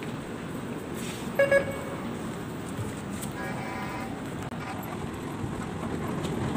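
Steady hum of an underground metro station concourse, with two quick electronic beeps about a second and a half in and a longer electronic tone a couple of seconds later.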